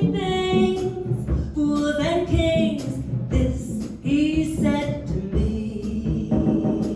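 Live jazz band playing a ballad: a woman sings a phrase over piano, bass and drums with steady cymbal strokes. The voice stops about five seconds in and the band plays on.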